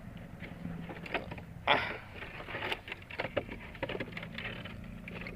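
Water work in a catfish tank: scattered knocks and scrapes, with a short splash of water about a second and a half in, over a steady low motor hum.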